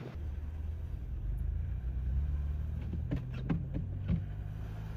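Car engine running with a steady low hum that shifts in pitch about three seconds in, with a few short knocks or clicks just after.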